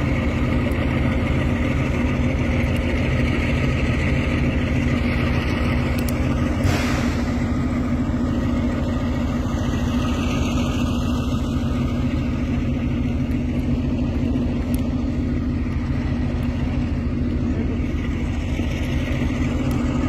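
Kalka–Shimla narrow-gauge toy train in motion: a steady engine drone with running rumble that holds at an even level.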